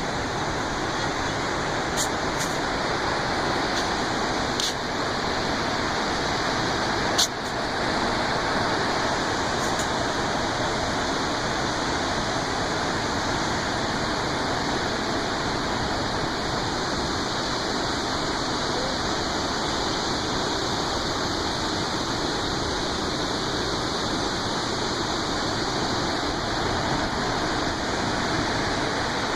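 Waterfall rushing steadily, with a few short clicks in the first several seconds.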